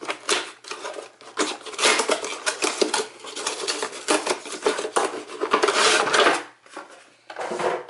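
Cardboard product box being opened by hand, its flaps scraping and rustling as a clear plastic clamshell tray is slid out of it, with a busy clatter of plastic and cardboard. The handling quietens after about six seconds.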